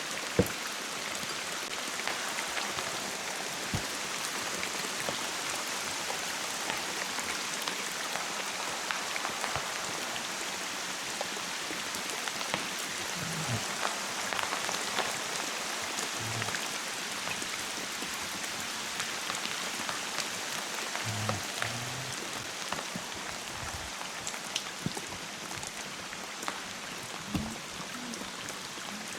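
Heavy downpour: a steady hiss of rain, dense with the ticks of individual drops striking around the kayak.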